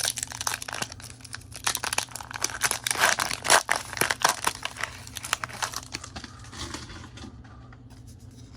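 Foil wrapper of a Pokémon booster pack crinkling and tearing as it is opened, dense crackling for about six seconds, then quieter handling.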